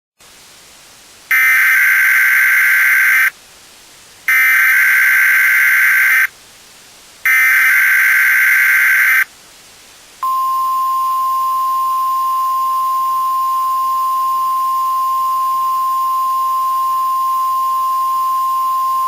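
Emergency Alert System tones. First come three identical two-second bursts of the warbling SAME data header, a second apart, that encode the alert. Then, about ten seconds in, a single-pitch attention signal starts and holds steady.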